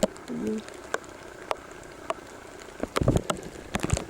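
Light rain falling, a faint steady hiss with scattered sharp taps, and a few duller knocks about three seconds in.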